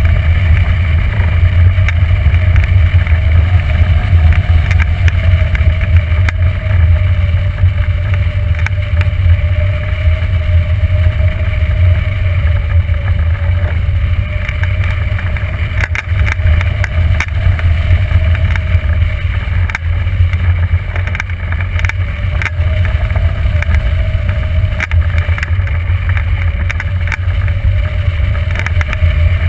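Wind rushing and buffeting over a hang glider-mounted camera's microphone in steady flight, a loud continuous low rumble. A faint tone drifts slowly up and down in pitch underneath it.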